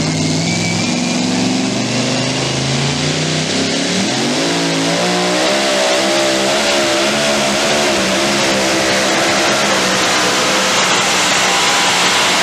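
Supercharged engine of a super modified two-wheel-drive pulling truck under load as it pulls the weight-transfer sled. It runs at lower revs at first, then at about four seconds the pitch climbs sharply and holds at high revs with a wavering pitch.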